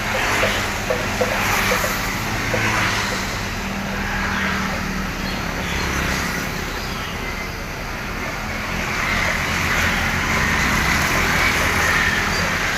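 Road traffic: vehicle engines running with a low drone, and the hiss of traffic swelling and fading several times.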